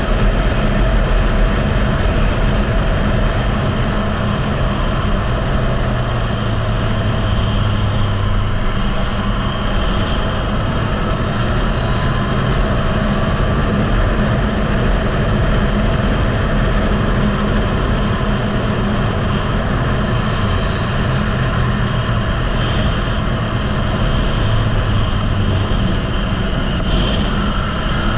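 Heavy wind rush over the microphone of a Yamaha MT-09 ridden at speed on a race track, with its three-cylinder engine running underneath. The sound is steady throughout, with the engine's low note rising slightly at a few points.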